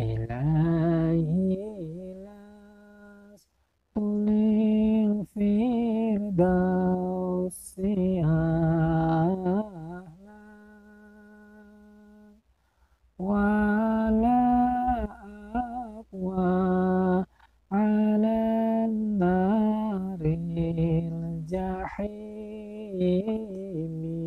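A man's unaccompanied voice chanting a puji-pujian devotional melody, drawing out long ornamented notes with no clear words. It comes in several long phrases with short breaths between them.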